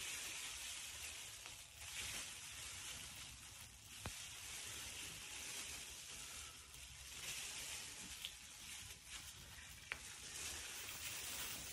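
Faint rustling hiss of limes being squeezed by hand in plastic gloves, with a couple of soft clicks.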